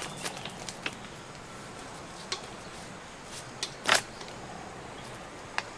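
Spoon stirring and scraping food in a metal wok: scattered light clicks and scrapes, with one louder scrape about four seconds in, over a steady low background.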